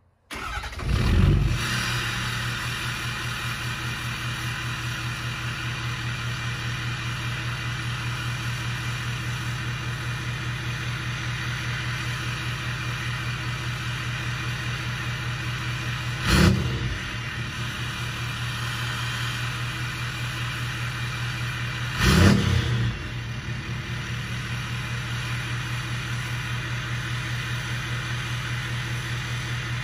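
2015 Ford F-250's 6.7 Powerstroke V8 turbodiesel idling through its exhaust with a steady turbo hiss, the engine note pulsing evenly. The throttle is blipped briefly three times, about a second in, about halfway through and again a few seconds later.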